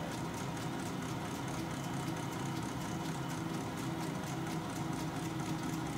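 Metal lathe running steadily with the carriage on power feed, a knurling tool rolling a pattern into a plastic cylinder; an even machine hum with a few steady tones.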